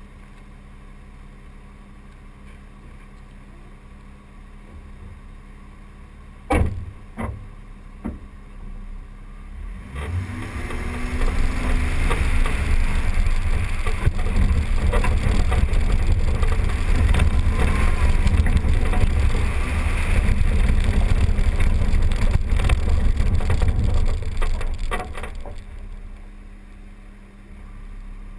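A 2012 Jeep driving along a rough dirt track, heard from a camera mounted on its body: a low, steady running noise, a few sharp knocks about six to eight seconds in, then from about ten seconds a much louder, rougher rumble with hiss for around fifteen seconds before it eases off again.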